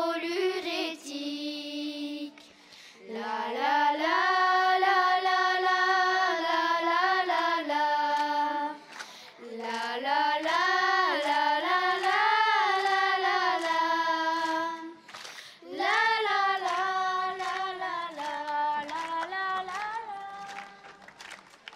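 A small group of girls singing a song in unison with no instruments, in four long phrases with brief breath gaps between them. The last phrase fades out near the end.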